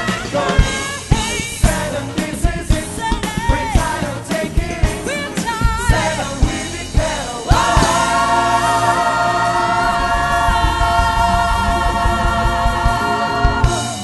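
Gospel choir with a female lead singer and drums, singing a fast rhythmic passage; about halfway through the choir holds one long final chord together, which is cut off at the very end.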